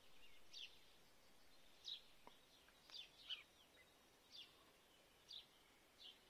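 Faint bird chirps: short, high, falling notes, about one a second, over quiet outdoor background noise.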